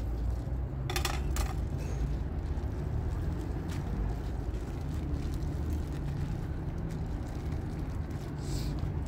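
Steady low outdoor rumble, with two sharp clicks about a second in and a short rustle near the end.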